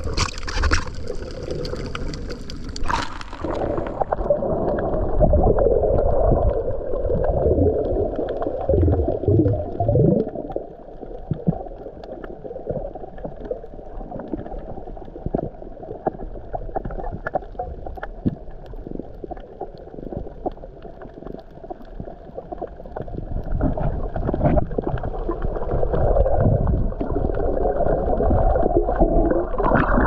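Muffled underwater sound picked up by a submerged action camera: water moving and bubbling around the housing, with many small knocks and clicks. A hiss in the upper range drops away about three seconds in, leaving the low, dull sound of water.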